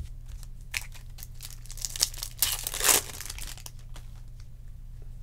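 Foil wrapper of a Topps Chrome jumbo card pack being torn open and crinkled: a run of crackly rustles, loudest about halfway through, then it stops.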